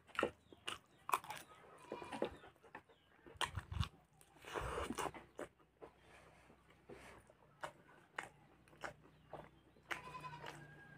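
Close-miked mouth sounds of a person eating chicken curry and rice with a spoon: wet chewing, lip smacks and sharp clicks, irregular throughout. A short pitched sound comes near the end.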